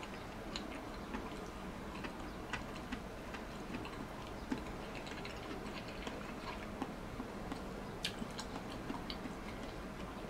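A person eating: chewing with small, irregular clicks of tableware against dishes, over a steady faint hum.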